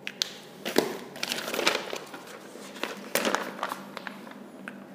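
Scattered light clicks and rustles of a person walking up and handling a sheet of paper and a whiteboard marker.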